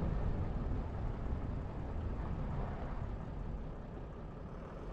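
Van driving slowly, heard from inside the cab: a steady low rumble of engine and tyre noise on the road.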